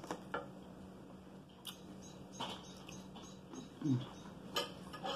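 Close-miked eating of a salad: a few sharp clicks of a metal fork against a ceramic bowl and crisp bites of cucumber and lettuce being chewed, with a brief low hum-like sound about four seconds in, over a steady low electrical hum.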